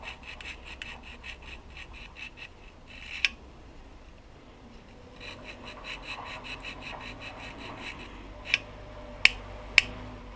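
A nail file rasping back and forth between the contact breaker points of a Solex 3800's ignition plate, about four or five quick strokes a second in two runs, cleaning oxidation off the points. A sharp click comes about three seconds in and several more near the end.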